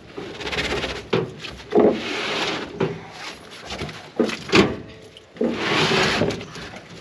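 Rusty old motorcycle being lifted and dragged onto a steel trailer: several knocks with stretches of scraping, and dry vines tangled on the bike rustling.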